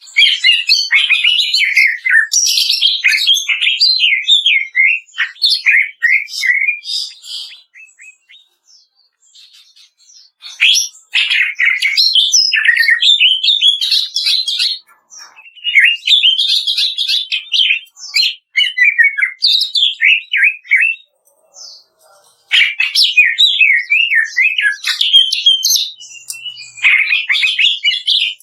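Cucak ijo (greater green leafbird) singing rapid, chattering bursts of warbled notes, the fast rattling 'kretekan' style used to rouse other birds. Four long bursts of song with short pauses between them.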